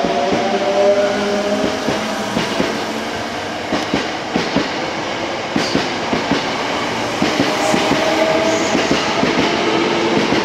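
Hankyu 8000-series electric train (set 8002F) pulling away from a station. Its motor whine rises in pitch at first, then wheels clack over rail joints as it gathers speed, and a whining tone comes back near the end. This set is known for an unusual running noise.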